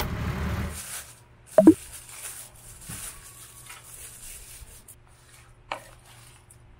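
For the first moment, vehicle rumble with background music, which cuts off before a second in. Then quiet handling of takeout packaging on a desk: light rustling and taps of plastic, paper and boxes, with one brief loud sound about one and a half seconds in and a small click near six seconds.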